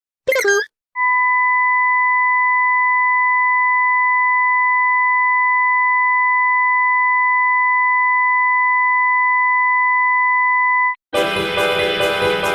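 A brief warbling electronic sound effect, then a steady pure electronic beep held unchanged for about ten seconds, like a censor bleep or test tone. Loud music starts near the end.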